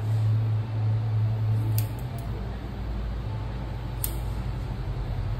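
Barber's scissors snipping hair over a comb, a few sharp, sparse snips, over a steady low hum that shifts lower about two seconds in.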